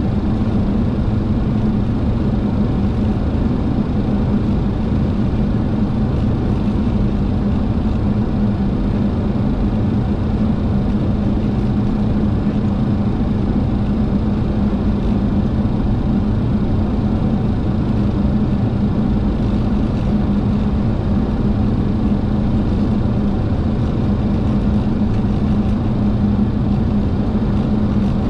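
Steady flight-deck noise of a Boeing 737-800 on final approach: a constant rush of airflow and engine noise with a steady low hum underneath.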